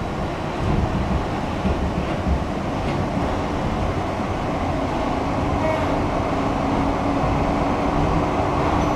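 A 1977 Siemens-Duewag U2 light rail car running along the track, heard from inside the passenger cabin as a steady rumble of wheels and running gear. A low steady tone joins the rumble about halfway through.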